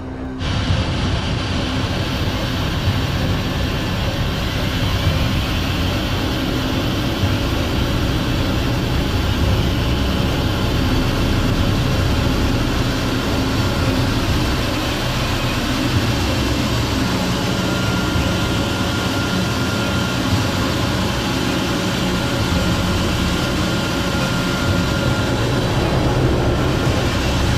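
Jet aircraft engine running steadily, a loud even rumble and hiss. A faint high whine comes in about two-thirds of the way through and fades before the end.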